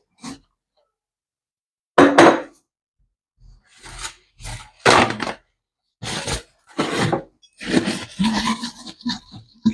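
Irregular knocks, thunks and rubbing of kitchen items being handled and wiped down, in short separate bursts that come more often in the second half.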